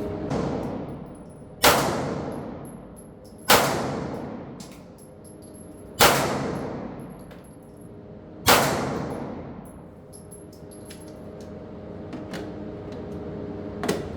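Four single shots from a Foxtrot Mike FM9 9mm AR-pattern pistol, spaced about two seconds apart, each with a long ringing echo.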